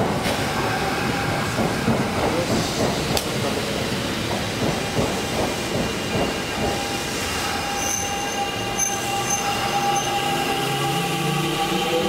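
Kintetsu 1253 series electric train pulling away from a station, its wheels rumbling on the rails. Over the last few seconds the VVVF inverter traction motors whine in several tones that climb in pitch as it accelerates.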